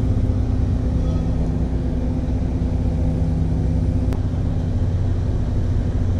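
An engine running at a steady idle, a low hum made of a few steady tones, with a single sharp click about four seconds in.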